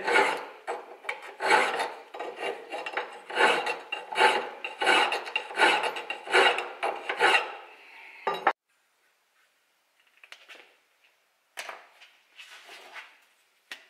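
Hand file worked back and forth across a metal bar clamped in a bench vice, about two rasping strokes a second, taking the bar down to a marked line for a snug fit. The strokes stop suddenly about eight seconds in, and a few faint scrapes follow.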